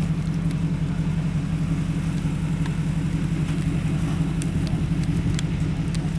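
An engine running steadily with a constant low rumble, with a few faint clicks over it.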